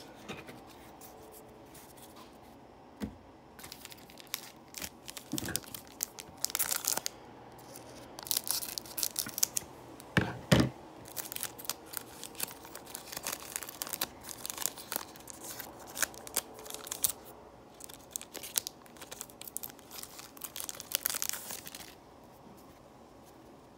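Foil wrapper of a Panini Score football card pack being crinkled and torn open by hand, in irregular crackling bursts that start a few seconds in and stop shortly before the end.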